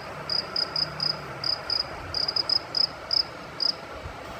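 A cricket chirping in the background, in short high chirps of about three to four a second at an uneven pace.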